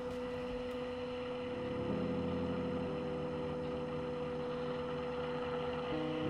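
Background electronic music with held synth chords that change about two and three seconds in and again near the end, over a steady hum.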